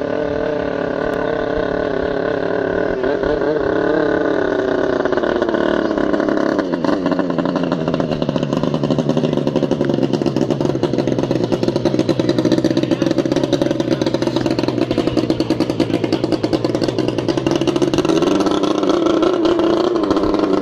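High-powered racing boat engine running flat out, its pitch climbing and falling as the throttle changes, then holding a steady, rattling high-rev note before rising again near the end.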